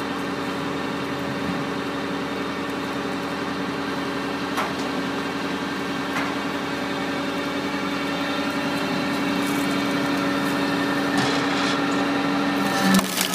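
Stanley Logger firewood processor's engine running steadily, with a couple of sharp knocks as a log is handled into the machine. Near the end its note drops and gets louder, with a few clanks.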